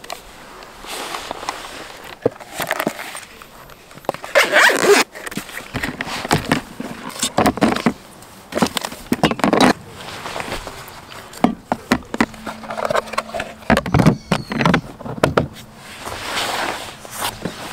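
Camping gear being handled and packed by hand: a string of rustles, scrapes and light plastic knocks at irregular moments, some of them items going into a plastic storage bin.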